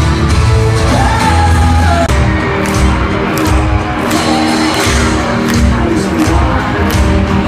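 Live pop-rock band music in an arena, loud, with a sung vocal line that ends about two seconds in. The band then plays on with a steady drum beat.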